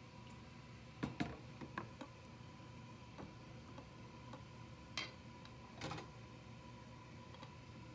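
Light kitchen handling sounds: a few sharp taps and clicks, a cluster about a second in and another around five seconds, then a short brushing scrape near six seconds, over a faint steady hum.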